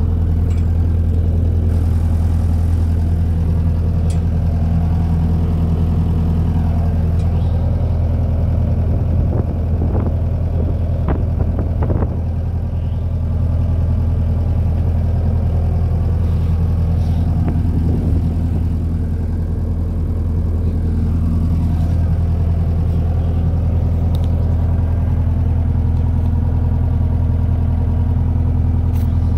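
Hamm 3205 smooth drum roller's diesel engine idling steadily, an even low drone, with a few light knocks about ten to twelve seconds in.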